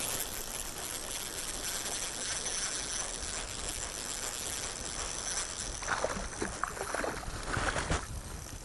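Water running steadily, with a few irregular splashes near the end.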